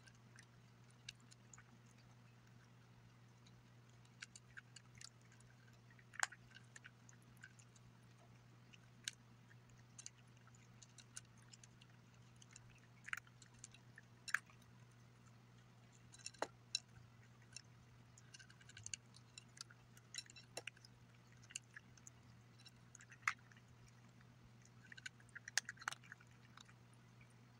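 A gray tabby cat eating dry kibble from a bowl: irregular sharp crunches as it chews, more frequent in the second half, over a steady low hum.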